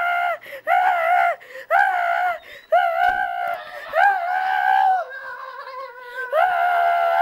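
A high-pitched voice gives a string of short cries about once a second, each rising and then falling in pitch, then starts one long held cry near the end.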